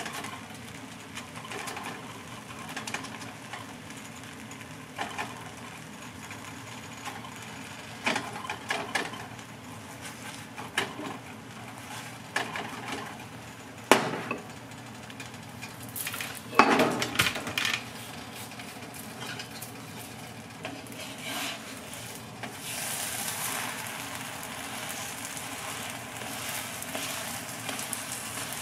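Dosti roti cooking on a cast-iron tawa: a faint sizzle of oil and butter under the dough, broken by scattered knocks and scrapes of utensils against the tawa, the loudest about 14 seconds in and a cluster around 17 seconds. From about 22 seconds in the sizzle grows stronger while wooden paddles work the roti.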